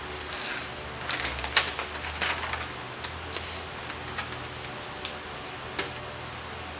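Paper release liner being peeled off the 3M adhesive backing of a FlexDek deck pad: crackling and rustling paper, densest in the first two and a half seconds, then a few scattered ticks.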